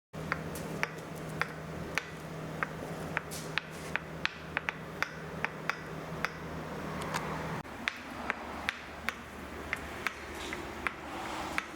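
Repeated sharp taps, about two a second and somewhat irregular, over a steady low hum that shifts about two-thirds of the way through.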